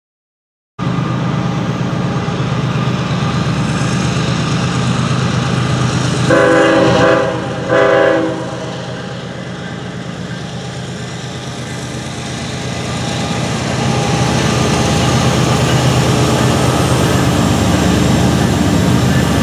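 Diesel locomotives of an approaching CSX freight train running with a steady low drone. Their horn sounds one long blast and then a short one, about six seconds in. The engine sound grows louder as the train draws near.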